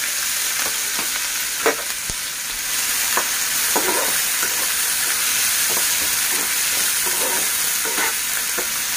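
Chopped onion and green chillies sizzling in hot tempering oil in a pan, stirred with a spatula that scrapes and knocks against the pan every so often.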